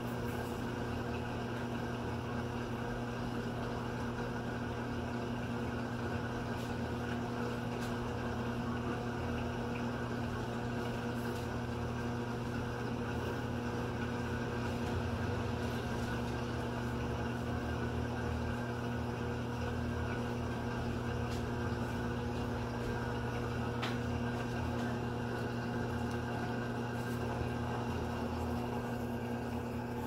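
Electrolux top-loading washing machine in its spin cycle, its drum spinning a pair of sneakers: a steady motor hum with an even drone.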